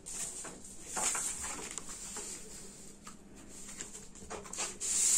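Chart-paper circles rustling and sliding against each other as they are handled and stacked, with a few soft taps. The rustling swells about a second in and again near the end.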